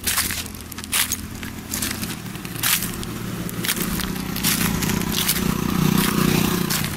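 Footsteps in flip-flop sandals crunching on dry fallen leaves and gravel, about one step a second. A low steady hum grows louder in the second half.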